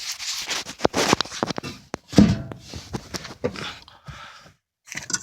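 Rustling and scraping noise broken by many sharp clicks, dying away near the end.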